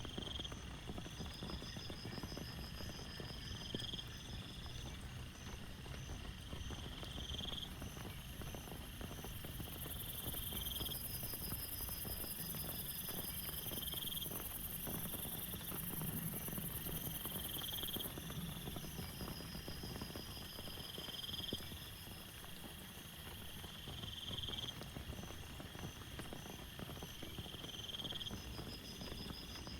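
Steady heavy rain falling, with a chorus of small animal calls on top: one call repeating about every three seconds, trilled bouts, and a high buzz in the middle.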